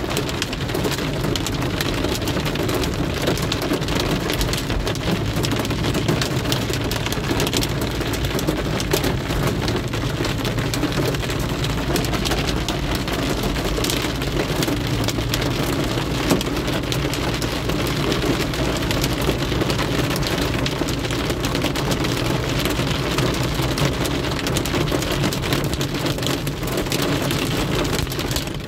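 Heavy rain pelting a car's windshield and roof, heard from inside the cabin while driving: a dense, steady patter of drops over the low hum of the car on the wet road.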